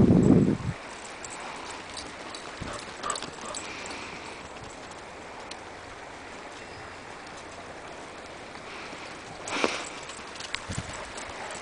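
Faint footfalls of Irish wolfhounds running and playing on dry dirt, with scattered light clicks. A gust of wind on the microphone cuts off just under a second in, and a short burst of noise comes near the end.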